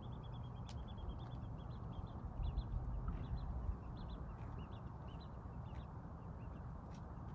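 Small birds chirping in rapid short high notes over a low rumble that swells for about a second, two and a half seconds in.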